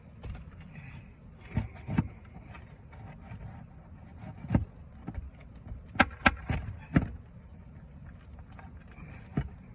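A hand tool knocking sharply on roofing nails and shingles while nails are worked loose: about eight separate strikes, irregularly spaced, with a quick run of four around the middle.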